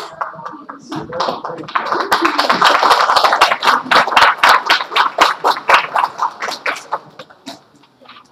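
Small audience applauding, with single claps standing out; it builds about a second in and dies away near the end.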